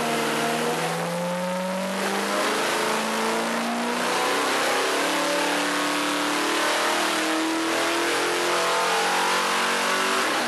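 350 small-block Chevy V8 running on an engine dyno. Its pitch climbs over the first two seconds, then holds fairly steady.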